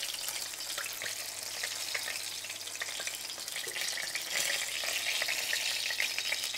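Garfish fillets shallow-frying in extra virgin olive oil in a stainless steel frying pan: a steady sizzle with many fine crackles, a little louder in the second half.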